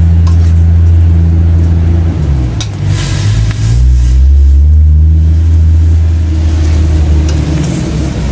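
A motor running with a loud, steady low hum whose pitch shifts and glides about two to four seconds in before settling again, with a few sharp clicks near three seconds.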